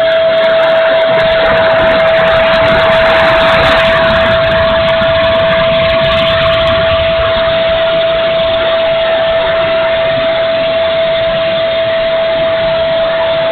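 Electric ducted fan of an RC sport jet running with a steady high whine over a rushing noise, with a low rumble of wind on the microphone.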